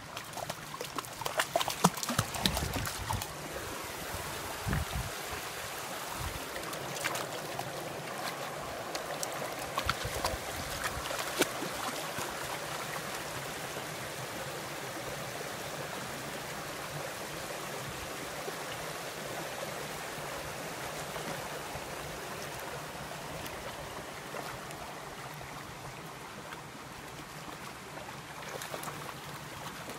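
Shallow rocky creek running steadily, with irregular splashes from dogs wading through the water during roughly the first twelve seconds.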